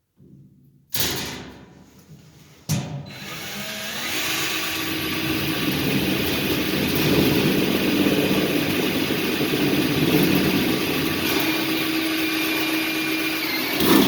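Power drill driving a screw: a short burst about a second in, then a long steady run with a faint whine from about three seconds in until near the end.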